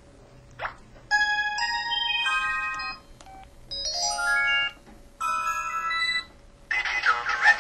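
IM-7400 mobile phone playing its built-in ringtones and effect sounds in turn through its loudspeaker: short electronic chime melodies of clean stepped tones, three in a row with short gaps between them. A brief swoop comes about half a second in, and a warbling voice-like clip comes near the end.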